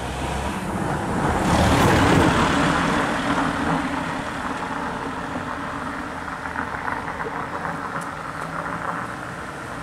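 A van driving past close by on the road, its tyre and engine noise swelling to its loudest about two seconds in, then fading as it drives away.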